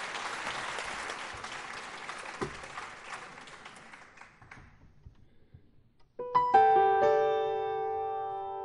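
Audience applause fades away over the first four seconds or so. After a brief hush, a grand piano comes in about six seconds in with sustained chords, the opening of a song.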